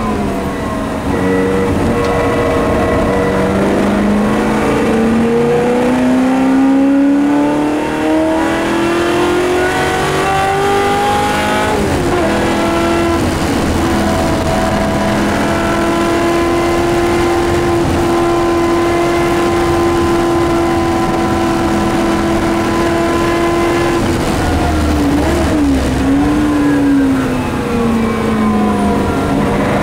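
Shelby Mustang GT350R's 289 V8 racing engine heard from inside the cockpit. Its pitch dips briefly, then climbs steadily under acceleration for about ten seconds. It drops at an upshift, holds steady for about twelve seconds, then wavers and falls away as the car slows near the end.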